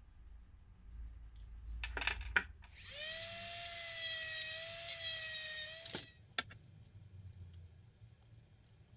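A small high-speed power tool, such as a rotary tool or drill, runs for about three seconds with a steady high-pitched whine and then cuts off suddenly. A few handling knocks come just before it.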